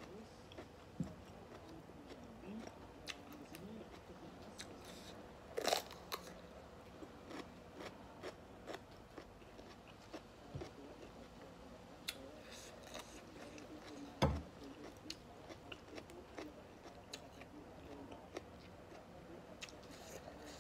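Close-up eating sounds: a person chewing raw vegetables and lettuce (lalapan), with many small crisp crunches and two louder crunching bites about six and fourteen seconds in.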